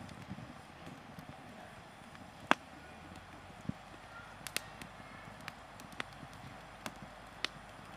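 Hardwood logs burning in an open fire: a soft steady hiss of flame with scattered sharp crackles and pops, the loudest about two and a half seconds in.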